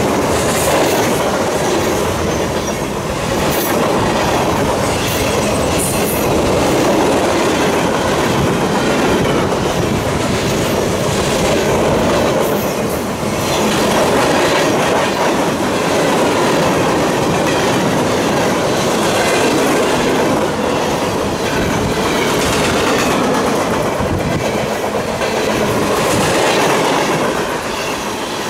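Freight train cars, coil steel cars and tank cars, rolling steadily past close by: a continuous loud rumble with rhythmic clickety-clack of wheels over the rail joints, and a few brief high squeals from the wheels.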